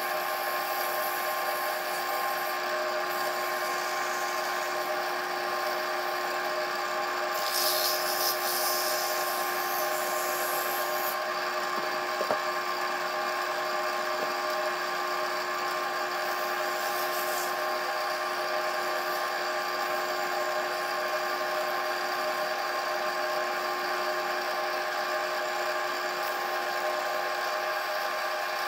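Wood lathe running at a steady speed, its motor giving a constant hum with several steady tones. A brief hiss cuts in around eight seconds in and again near the middle.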